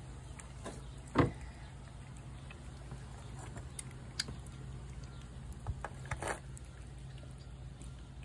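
A tabby cat chewing wet food off a plate: sparse small clicks and smacks over a steady low hum, with one sharp, loud knock about a second in.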